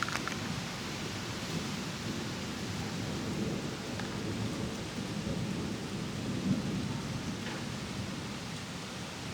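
Thunder from a supercell thunderstorm rumbling on and off over a steady rushing hiss, with a brief crackle at the start and a louder swell about six seconds in.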